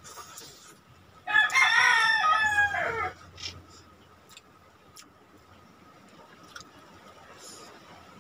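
A rooster crowing once, starting about a second in and lasting about two seconds, its pitch dropping at the end.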